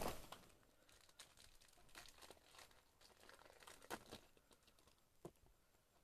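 Near silence with a few faint, brief crinkles: a Match Attax trading-card packet's wrapper being torn open by hand, the loudest crackle about four seconds in.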